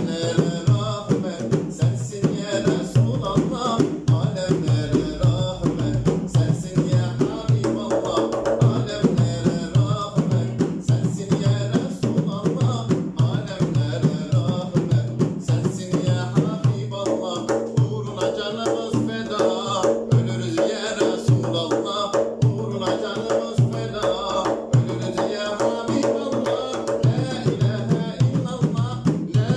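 A man singing a slow Islamic hymn (ilahi) in long held notes, accompanied by a hand-played frame drum beating a steady rhythm.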